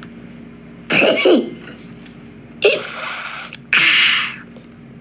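A boy's wordless vocal noises: a short voiced sound about a second in, then two breathy, hissing bursts of about a second each, sneeze- or cough-like.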